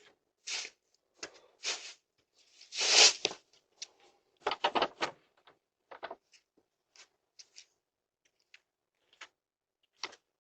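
Scattered clicks and knocks, like a door or objects being handled, with a louder scraping rustle about three seconds in and a quick run of knocks soon after.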